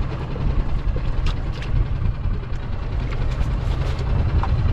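Steady low rumble of a small boat idling at sea, with wind on the microphone and a few light ticks and splashes of water.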